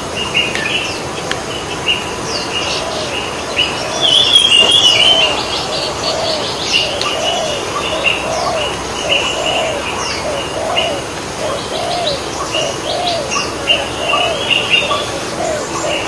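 A dove cooing over and over in short notes, about one and a half a second, with smaller birds chirping and twittering higher up, loudest about four seconds in.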